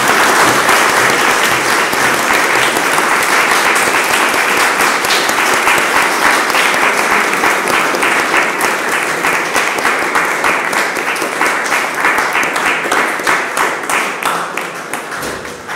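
Audience applauding, a dense steady clapping that thins into more separate claps and dies away near the end.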